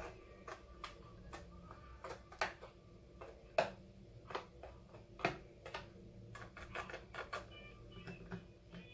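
Wire whisk clicking and scraping against the pot and the plastic dish while thick cream is spread over ladyfingers: irregular light clicks and taps, a few louder ones in the middle.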